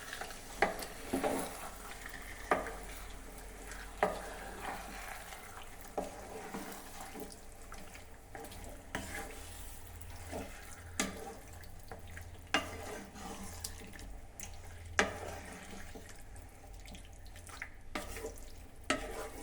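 A spoon scraping and knocking against the pan every second or two as raw chicken in masala and curd is stirred, over a low wet sizzle.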